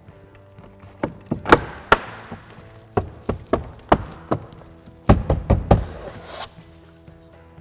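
A car door trim panel being knocked into place by hand, its retaining clips snapping home. The sharp knocks come one or two at a time, then in a quick cluster about five seconds in. A quiet music bed runs underneath.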